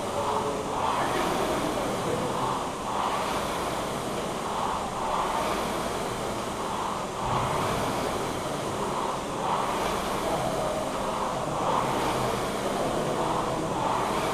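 Indoor air rowing machine's fan flywheel rushing with air, swelling with each drive stroke about once every two seconds in a steady rhythm.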